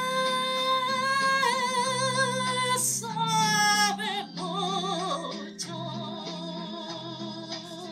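A woman singing long held notes with heavy vibrato through a microphone and amplifier, over a low sustained instrumental accompaniment. About three seconds in, her voice slides down in a quick run before settling on further held notes.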